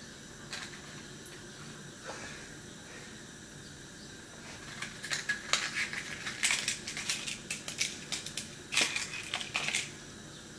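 Quick, irregular clicks and clattering from things being handled on a gas stovetop, in two spells starting about halfway through, loudest near the end.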